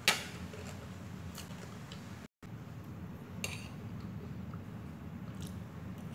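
A metal fork clinking against a plate while noodles are eaten: a sharp clink right at the start and a lighter one about three and a half seconds in, over a steady low background noise.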